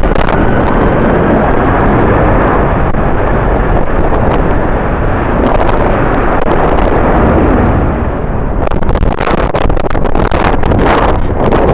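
Strong gusting wind buffeting the microphone: a loud, rough rumble with sudden pops and thumps, easing slightly partway through and turning choppier near the end.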